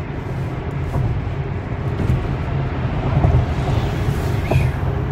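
Steady low rumble of tyre and wind noise heard inside an electric car's cabin at highway speed, with no engine note.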